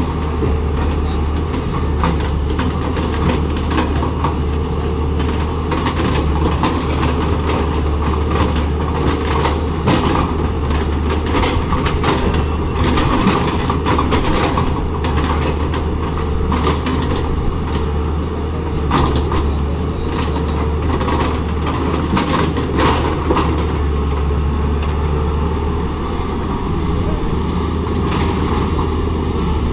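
Tata Hitachi hydraulic excavator's diesel engine running with a steady low drone as the machine digs and swings, with short knocks scattered throughout.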